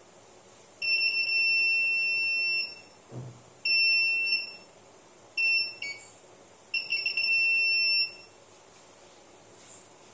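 Small electronic buzzer sounding one high steady tone in four bursts, the longest about two seconds, cutting in and out and stuttering as the wire ends make and break contact. It runs on a series of homemade aluminium-air battery cells.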